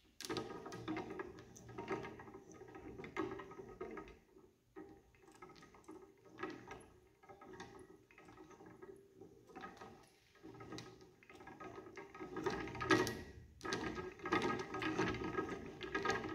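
Hand-cranked plastic gear train, a 15-tooth gear driving a 45-tooth gear, meshing with a clicking rattle as the crank is turned. The rattle comes in uneven spells and is loudest near the end.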